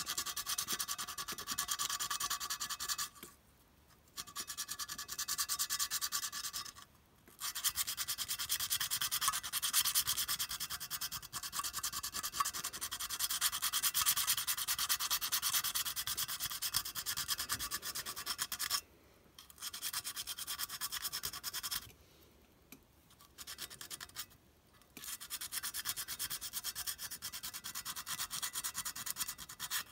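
Sandpaper rubbed rapidly back and forth over the painted metal body of an O gauge clockwork locomotive, stripping the old paint. It comes in several spells with short pauses between them.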